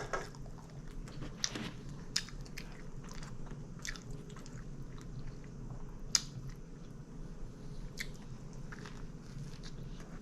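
Close-miked chewing and biting of a Subway sub sandwich, with scattered short clicks and crunches over a steady low hum.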